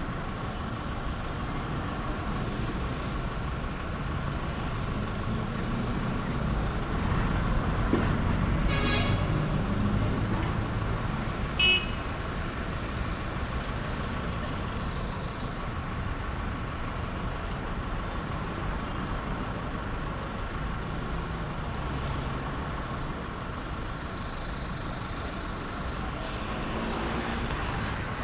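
Street traffic: a steady rumble of cars and trucks, louder as a vehicle passes about eight seconds in, with one short, sharp car horn toot about twelve seconds in.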